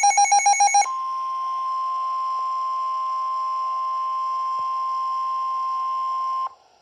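A weather alert radio's rapid pulsing alert beep for under a second, then the steady 1050 Hz NOAA Weather Radio warning alarm tone for about five and a half seconds, which cuts off suddenly. The tone signals an Emergency Alert System warning, here a severe thunderstorm warning.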